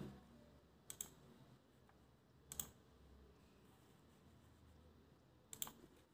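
Faint clicks of a computer mouse in three short groups, about a second in, near the middle and near the end, over near silence.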